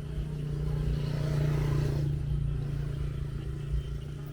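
A motor vehicle passing on the road, its engine and tyre noise swelling to a peak about a second and a half in and then fading away, over a steady low hum.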